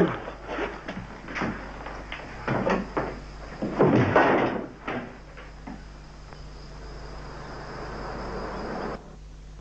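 Bumps, scuffling and the knock of a wooden cupboard door being handled and shut, loudest about four seconds in. A steady hiss follows, swelling slightly and cutting off suddenly near the end.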